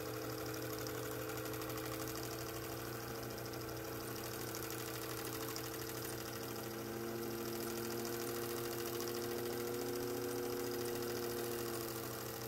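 Singer 15 sewing machine's potted motor running at a steady speed with an even hum, winding a bobbin.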